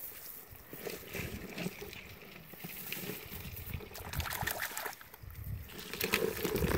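Hands digging through wet grass and mud in shallow paddy water: irregular rustling, squelching and small splashes as a crab is grabbed and pulled out.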